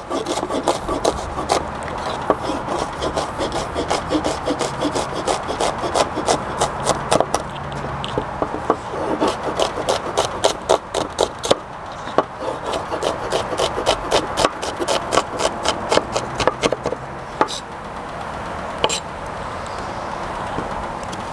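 Chef's knife chopping shallots on a wooden cutting board: quick, repeated taps of the blade against the board, several a second, thinning to a few scattered taps near the end.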